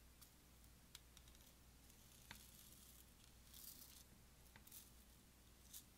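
Faint rattling and ticking of small red beads shaken out of a little plastic tube onto clear slime, with a few separate clicks and a short run of pattering about three and a half seconds in and again near the end.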